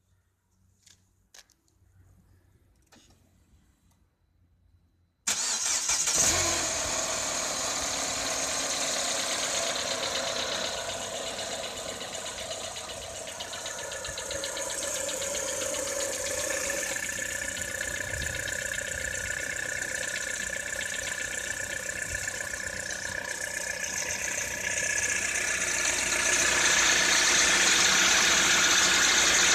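2013 Citroën C4 engine being started about five seconds in after a few faint clicks, then running steadily, somewhat louder in the last few seconds. The owner says this engine has a knock.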